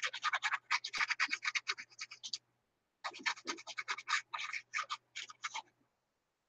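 Quick, scratchy back-and-forth strokes of a small bottle's applicator tip rubbed along the torn edge of a piece of paper, about eight strokes a second. The strokes come in two runs of two to three seconds with a short pause between.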